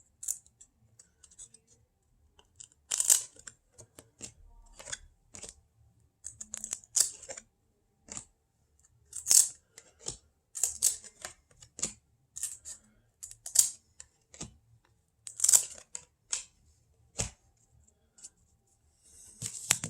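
Cardboard trading cards slid one at a time off a stack, a short papery swish every second or so, with a longer rustle near the end.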